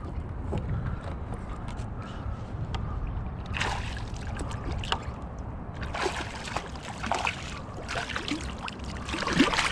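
Water splashing and sloshing beside a kayak as a hooked cutthroat trout thrashes at the surface, in several bursts over a low steady rumble.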